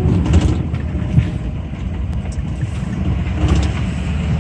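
Steady engine hum and road rumble of a 2004 Ford F-350 diesel pickup driving, heard from inside the cab.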